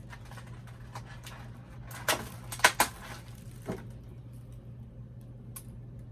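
Small plastic doll accessories and packaging being handled: a few sharp plastic clicks and short rustles about two to three seconds in, with one more click a second later, over a steady low hum.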